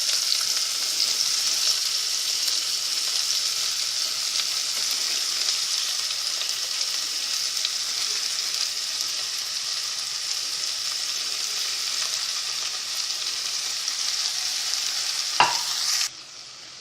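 Sliced onions sizzling in hot coconut oil in a non-stick pan, a steady frying hiss. A single knock comes just before the sizzle cuts off suddenly near the end.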